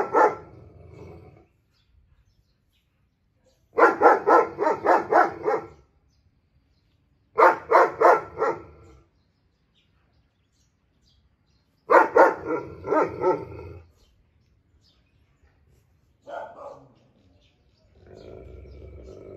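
German shepherd barking at another dog in loud bouts of five to eight quick barks, several seconds apart, with one short faint bark toward the end.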